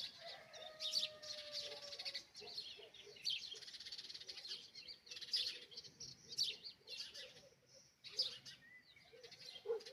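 Morning chorus of small songbirds chirping and twittering, many short calls overlapping without pause. A faint, long, slowly falling tone sounds under them in the first two seconds.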